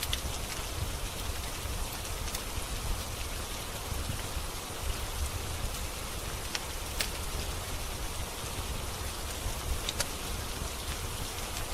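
Steady rain falling, with a few sharp crackles from a wood fire scattered through it.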